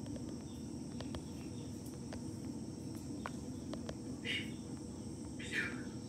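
Jungle babbler (seven sister bird) giving two short, harsh calls, about four seconds in and again near the end, over a steady high-pitched hum and a few faint clicks.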